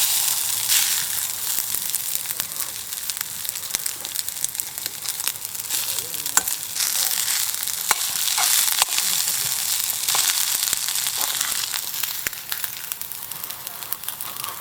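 Food sizzling as it fries in a pan, with scattered clicks and scrapes of a utensil stirring it. The sizzle fades a little near the end.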